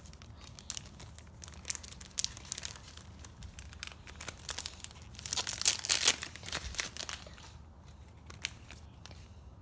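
Foil wrapper of a trading-card pack being torn open and crinkled by hand, a run of sharp crackles with the loudest burst about five to six seconds in.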